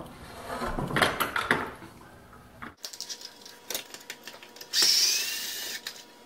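Cordless drill driving out a screw, its motor whining for about a second near the end, the pitch rising and then holding steady. Before that come a few light clicks and knocks of handling.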